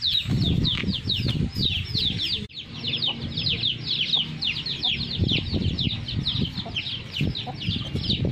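A brood of chicks peeping without pause, a quick run of high, falling peeps several a second, with a hen clucking low underneath.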